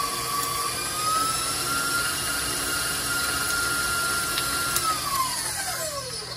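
Tilt-head stand mixer's motor running as it creams butter and peanut butter, a pretty loud steady whine. Its pitch steps up about a second in as the speed is raised, then falls away over the last second and a half as the mixer is switched off and spins down.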